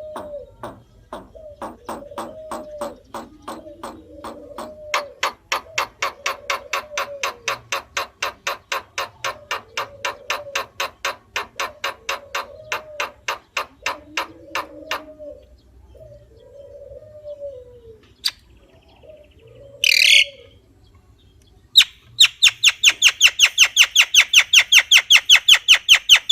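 Javan myna (jalak kebo) calling: a long run of rapid, evenly repeated sharp notes over lower arching notes about once a second. The run stops about 15 s in. A single harsh note follows, then a fast, loud rattling chatter near the end.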